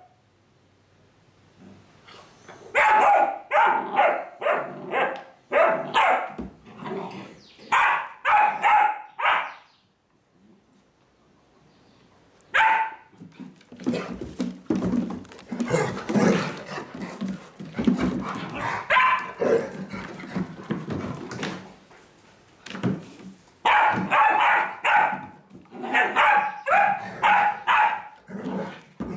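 A puppy and an adult dog at play: rapid play barks in bursts, a lull about a third of the way in, a noisier stretch of scuffling on a wooden floor in the middle, then more barking near the end.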